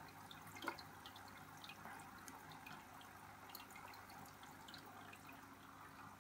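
Near silence: a faint steady water trickle with scattered drips and a low hum, typical of a running aquarium filter, and one small click about a second in.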